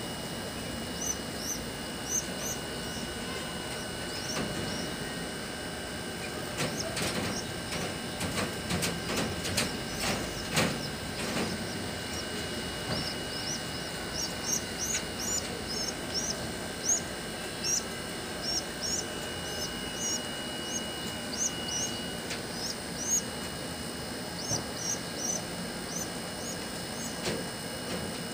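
Pigeon squabs squeaking to beg for food: short, high chirps in quick runs that go on through most of the stretch. Knocks and rustling come in a cluster a few seconds in.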